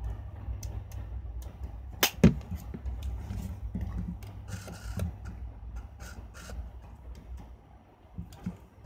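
Canon EOS-1 film SLR being worked by hand: one sharp mechanical click about two seconds in, then a scatter of softer clicks and short mechanical bursts, over a steady low hum.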